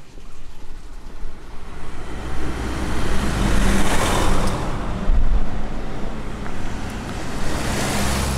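Two small trucks drive past close by, one after the other, their engine hum and tyre noise swelling and fading. A green light cab-over truck passes about four seconds in, and a white kei truck passes near the end.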